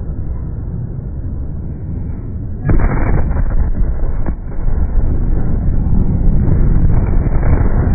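Blast wave of a huge ammonium nitrate explosion reaching a phone's microphone, slowed down: a deep rumble, then a sudden loud blast about three seconds in, with a few sharp cracks and heavy rumbling after it.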